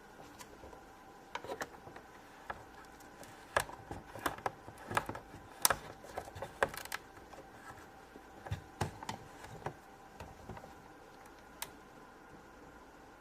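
Plastic Play-Doh toys being handled on a table: scattered light clicks and taps at irregular intervals, busiest in the middle and sparse near the end.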